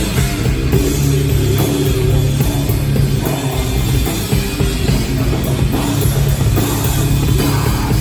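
Rock band playing live, an instrumental stretch with drum kit and guitar.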